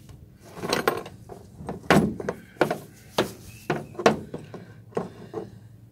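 Small metal clicks and knocks of an Allen key working the bracket screws on a drill-mounted plate-shear attachment: about ten sharp taps at irregular intervals, some with a short ring.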